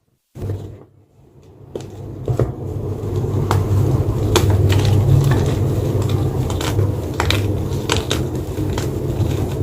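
White gym chalk being crunched: a dense run of crackly crunches over a steady low rumble. It starts after a brief silent break near the beginning and thickens over the first couple of seconds.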